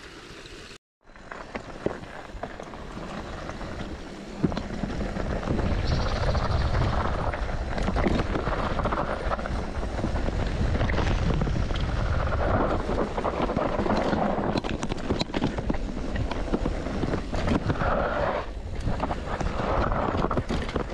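Mountain bike riding fast down a rough trail: heavy wind rumble on the microphone with tyre noise and a constant clatter of small knocks and rattles from the bike over rough ground, getting louder a few seconds in.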